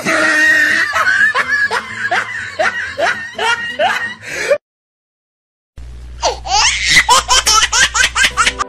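Hearty human laughter in a rapid run of short 'ha-ha' pulses. It breaks off for about a second of dead silence just past the middle, then starts again in a second, faster run of laughs.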